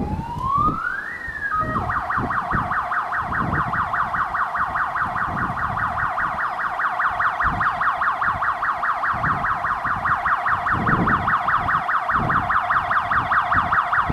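Mini fire engine's electronic siren: a rising wail that switches about two seconds in to a fast, continuous yelp that keeps repeating.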